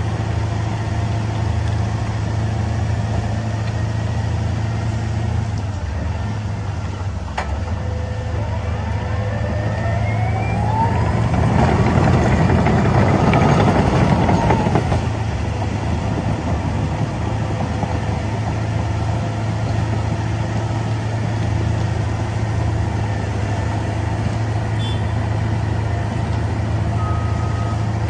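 Heavy construction machine's engine running steadily. For a few seconds around the middle it rises in pitch and gets louder, as under load, then settles back.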